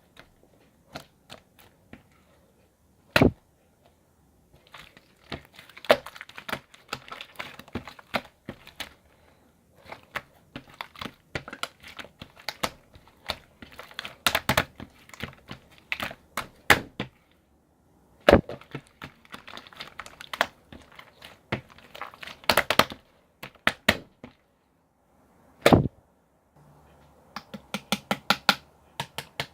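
Bursts of rapid, sharp clicking and tapping with short pauses between them, and three single louder thuds at wide intervals. Near the end the clicks come more evenly, about four a second.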